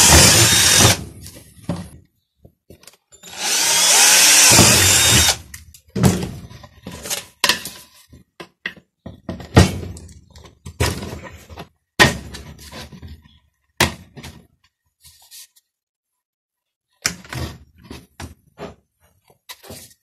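Electric drill boring a hole through the wall of a 125 mm PVC pipe: one run ends about a second in and a second run follows about 3 to 5 seconds in, its speed rising and falling. The rest is scattered knocks and clicks of the pipe, drill and a nail being handled.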